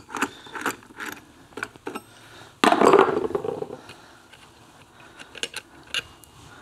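Metal-on-metal clicks and clinks of hand tools and the clutch hub nut on an Aermacchi motorcycle engine, as the loosened nut is taken off, with one louder rattle about two and a half seconds in.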